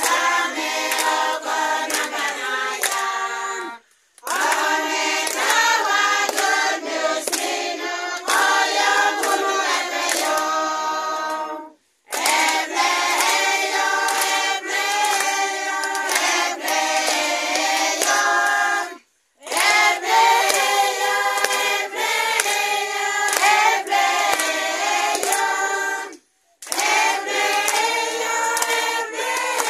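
A congregation of mostly women singing together unaccompanied, clapping their hands in time. The singing breaks off for a moment four times.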